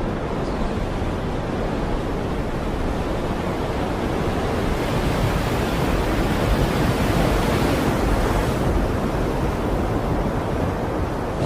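Stormy sea with wind: a dense, steady rush of waves and wind that swells stronger about halfway through, then eases off.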